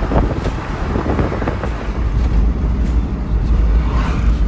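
Suzuki Every kei van driving at highway speed, heard from inside the cabin: a steady low rumble of tyre and road noise with wind rushing past.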